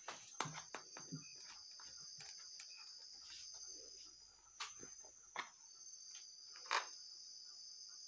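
Faint steady chirping of crickets, with a few short knocks and scrapes, the loudest in the second half, as a knife cuts through a baked pie and touches the aluminium baking pan.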